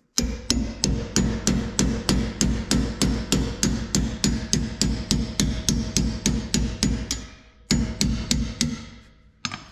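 Hammer striking a steel socket extension in quick, even blows, about four a second, to drive a worn plastic suspension bushing out of a travel trailer's spring hanger. The blows stop briefly about seven seconds in, then resume.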